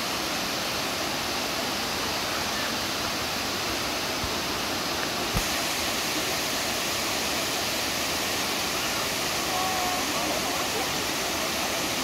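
The Dzhuryn waterfall, a 16-metre cascade on the Dzhuryn river, pouring over stepped rock ledges: a steady, unbroken rush of falling water.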